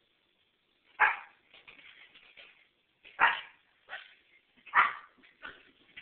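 Miniature pinscher puppy barking: three loud, sharp barks about a second and a half to two seconds apart, with a few quieter barks in between.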